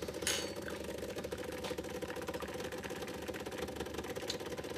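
Decent espresso machine's pump buzzing steadily while pulling an espresso shot, with one light click shortly after the start.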